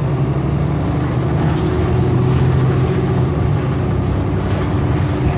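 Nova LFS city bus's Cummins diesel engine running, heard from inside the passenger cabin as a steady low drone that swells slightly about two seconds in.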